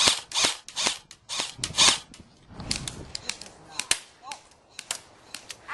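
Airsoft rifles firing: a quick, irregular string of sharp pops, densest and loudest in the first two seconds, then sparser and fainter.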